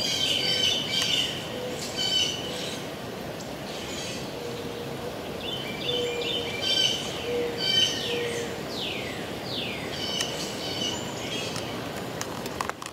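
Northern cardinal song: clear whistles sliding steeply downward, three in a row after about nine seconds, mixed with runs of quick chirping notes, over a steady background hiss.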